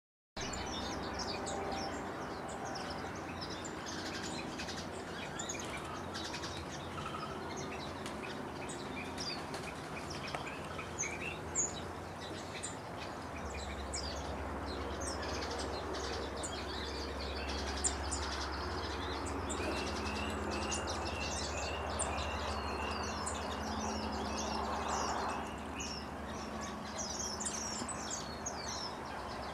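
A flock of small finches chirping and twittering, many short high calls overlapping. Past the middle, one bird repeats a short note about twice a second for several seconds.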